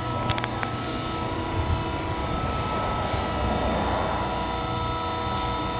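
A steady machine drone with several constant tones over a low hum, with a few sharp clicks about half a second in.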